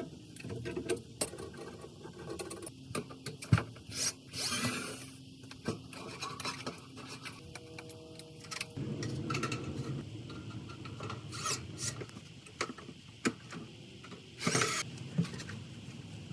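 Hand-work noises on a gas water heater: scattered clicks, knocks and short scraping rubs of tools and metal parts being handled.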